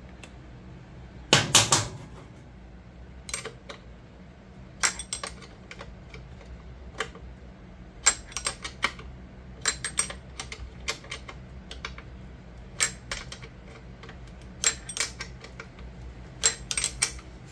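Hand wrench working a nut: short runs of sharp metal clicks and clinks, irregularly spaced, with the loudest cluster about a second and a half in.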